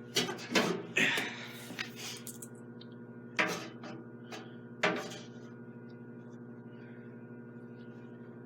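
A handful of knocks and rattles as things are handled, the loudest about three and a half and five seconds in, over a steady electrical hum that carries on alone for the rest.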